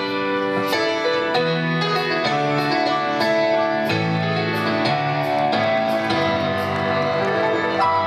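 Instrumental passage of a folk-song arrangement: piano chords over regular percussion strokes, about three every two seconds.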